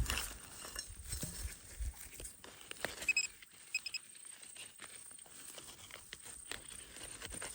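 Hand digging in hard, tough ground: irregular chops, knocks and scrapes of a digging tool in soil. A couple of short high beeps sound a little past three seconds in.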